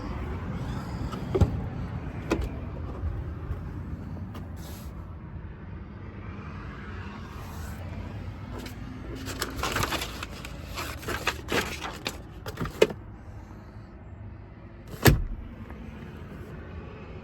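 A scattering of sharp clicks and knocks over a low steady rumble, with a cluster of rattling knocks in the middle and one loud bang about fifteen seconds in.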